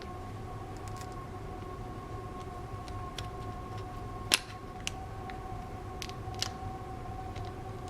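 A few sharp, small clicks and taps of tools against small phone parts, the loudest about four seconds in, over a steady electrical hum with several constant tones.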